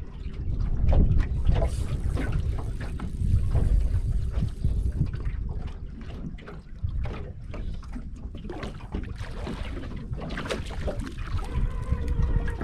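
Wind buffeting the microphone and water lapping at a small aluminium boat, with scattered light clicks and knocks.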